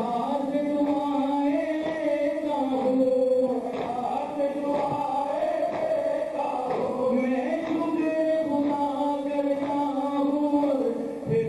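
Male voices chanting a noha, a Shia mourning lament, in long held, wavering notes, with faint slaps of chest-beating matam beneath.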